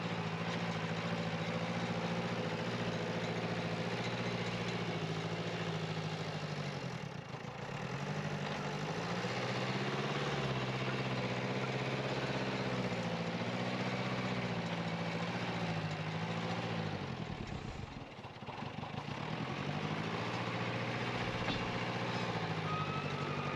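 Backhoe's diesel engine running under load as it works soil. The engine note sags and climbs back twice: about a third of the way in and again about three quarters of the way in.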